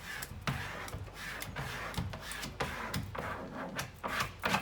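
A plastic card scraped firmly over a vinyl sticker on a plastic wheelie bin, pressing it down from the centre outwards in a series of uneven rubbing strokes, the strongest near the end.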